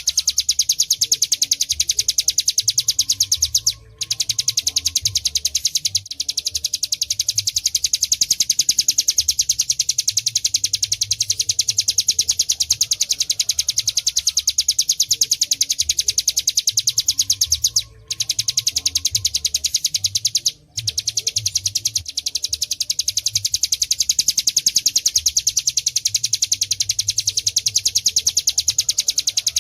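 Hill prinia (ciplek gunung) singing its rapid, continuous rattling trill (ngebren), a fast even run of high ticking notes that breaks off briefly three times.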